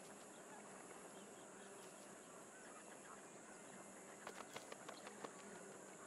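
Faint natural ambience: a steady, high insect drone, with a quick series of short ticks a little past four seconds in.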